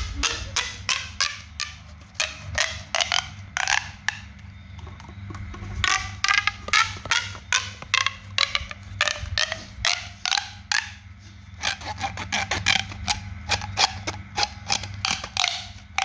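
A handmade pop toy being pressed over and over, giving runs of sharp pops several times a second, with short lulls about four seconds in and near eleven seconds in. A low steady hum runs underneath.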